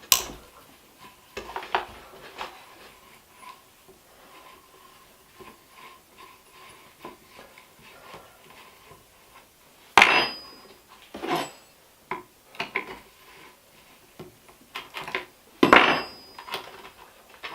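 Small clicks and clatter of hand tools unscrewing the recoil cover of a Stihl handheld leaf blower, with two sharp knocks of hard objects set down on the bench, about ten seconds in and again near the end.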